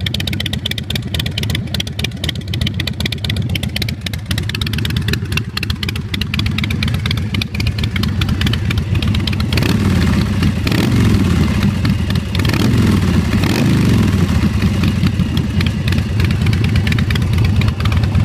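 American Ironhorse chopper's carbureted 111 cubic inch S&S V-twin running through a Vance & Hines exhaust, idling with its rapid firing pulse. The throttle is blipped twice about halfway through, the engine note rising and falling each time.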